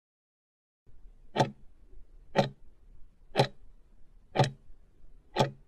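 Clock-tick sound effect counting down the final seconds of a countdown timer: five sharp ticks, one a second, beginning about a second and a half in over a faint low hum.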